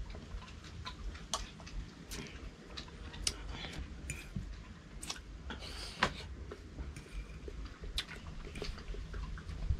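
A person eating: chewing, with a spoon clicking and scraping on a plate in short irregular taps, the sharpest about six seconds in.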